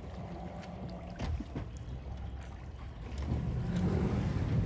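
Boat on the water: a few light knocks and splashes, then a louder low steady drone from about three seconds in, with wind on the microphone.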